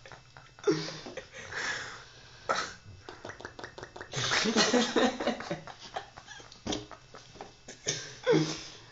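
Sleeping boxer dog snoring and snorting, in irregular noisy bursts a second or two apart.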